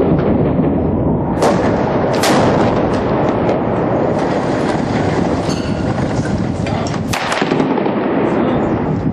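Heavy gunfire, near-continuous and echoing, with loud sharp cracks about a second and a half in, just past two seconds, and about seven seconds in.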